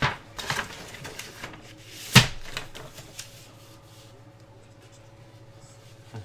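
Handling noise of a stiff manila envelope being moved and set upright on a tabletop: paper rustles and small knocks, with one sharp knock about two seconds in, then only faint room hum.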